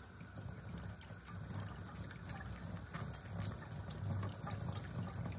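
Thin stream of water from a kitchen faucet running steadily into a shallow dish of water.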